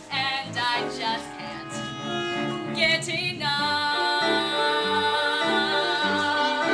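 Musical-theatre song: singing with instrumental accompaniment. From about halfway a long note is held over a sustained chord.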